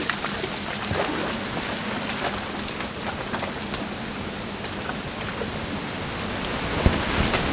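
Tall grass rustling and swishing steadily as a safari elephant wades through it, with faint crackles throughout and a couple of sharper knocks near the end.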